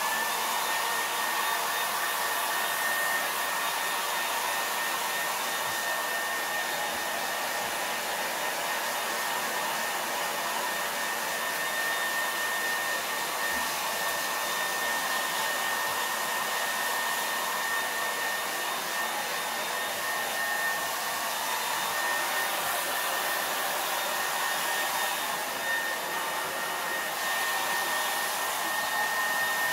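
Handheld dryer blowing steadily on a small dog's wet coat: a rush of air under a motor whine held on one high pitch.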